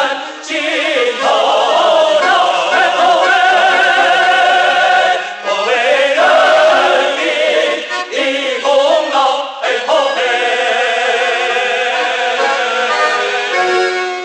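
Music: a 1970s Chinese song with voices singing held notes with vibrato, in a choral, operatic style, over instrumental accompaniment.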